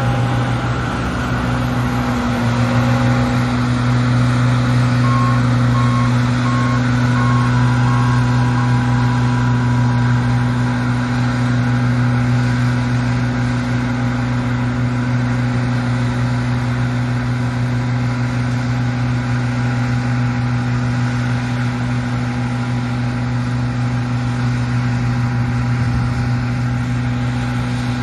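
Large diesel harvest machine's engine running steadily under load, a deep even drone. A reversing alarm beeps about once every two thirds of a second for a few seconds in the first third, then stops.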